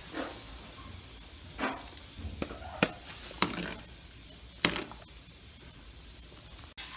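Food sizzling in a hot pan as a steady hiss, with a utensil scraping and clicking against the pan several times between about two and five seconds in.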